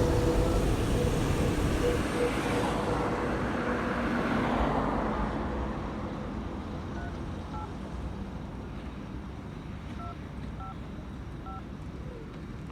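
Road traffic noise: a vehicle's rumble that is loudest in the first few seconds and fades away, with a steady hum over the first three seconds. A few faint short beeps come in the second half.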